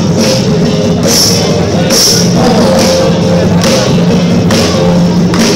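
Loud dance music played for breakdancers, with a steady beat and sharp, hissy cymbal-like hits about once a second.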